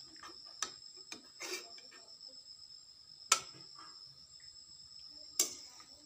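Sharp knocks of a metal utensil against a steel cooking pot, the loudest about three seconds in and another near the end, with a few lighter clicks earlier. Under them runs a steady high-pitched chirring of crickets.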